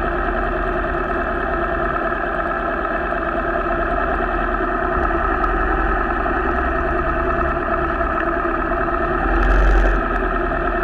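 Cruiser motorcycle engines idling steadily, with a brief swell of rumble near the end.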